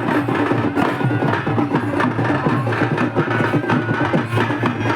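Music with busy, fast percussion of drum and wood-block-like strokes under a melody line.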